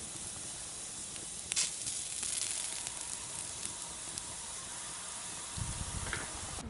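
Steady sizzling hiss with a few sharp crackles, the loudest about a second and a half in. It starts and stops abruptly.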